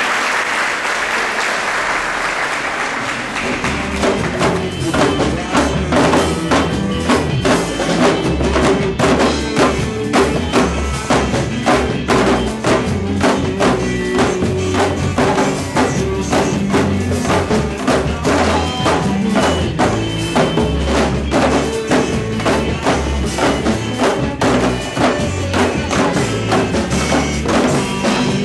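Applause, then percussion-heavy music starts about three and a half seconds in, with strong low drum beats keeping a steady rhythm.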